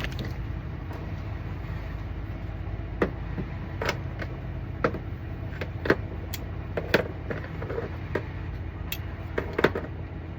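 Sharp clicks and taps of small 3D-printed plastic parts being handled, several times a second or so apart, over a steady low machine hum.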